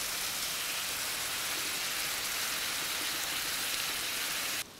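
Chopped onion, tomato and raw chicken sizzling in hot oil on a tawa, a steady hiss that cuts off suddenly near the end.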